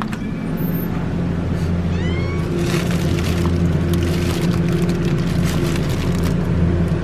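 Steady low hum of a refrigerated dairy cooler. About two and a half seconds in, a plastic milk bag crinkles as it is handled in its crate, with a short squeak just before.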